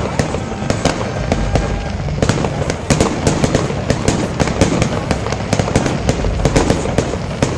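Aerial fireworks bursting: a fast, irregular run of sharp bangs and crackles.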